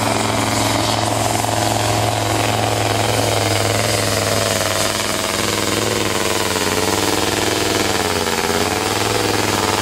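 Supersport pulling truck's diesel engine running loud and steady at full throttle, under heavy load from the pulling sled.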